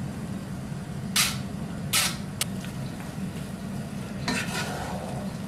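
Steel spoon scraping cooked basmati rice out of a stainless steel mesh strainer into a pan of masala: two sharp clatters of metal on metal about a second apart, a small tick, then a longer scrape near the end, over a steady low hum.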